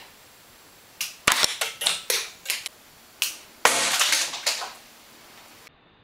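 Sharp clicks and snaps from a spring-loaded click pen packed with three springs: a quick run of clicks about a second in that die away in loudness, like the parts being fired out and clattering. Another single click follows, then a longer rustle of handling.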